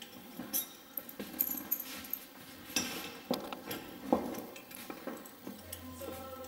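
Metal sculpture pieces clinking and knocking against each other and the wall pins as they are handled and fitted, an irregular string of light clanks with the sharpest about four seconds in.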